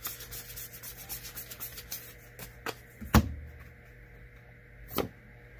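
Magic: The Gathering trading cards being handled and flipped through, their surfaces rubbing and flicking in a quick patter of small clicks over the first few seconds. A sharp knock with a dull thud comes about three seconds in, and another sharp click near five seconds.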